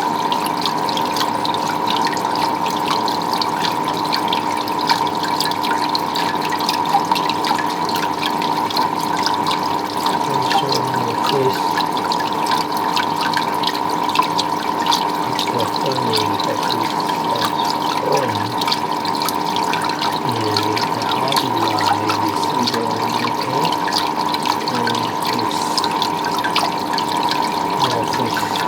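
Water running and splashing steadily, with a constant hum of two steady tones underneath.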